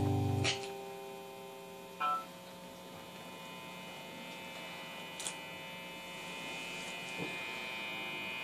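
An amplified electric guitar's last ringing notes are cut off about half a second in, leaving the steady hum and buzz of the idle amplified guitar, with a short blip about two seconds in and a couple of faint clicks later.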